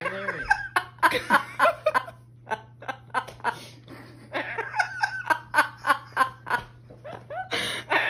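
Repeated runs of laughter, fast 'ha-ha' pulses with short pauses between. A woman and her two Amazon parrots are laughing together.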